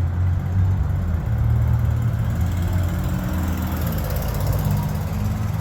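A motor vehicle's engine idling close by, a steady low rumble.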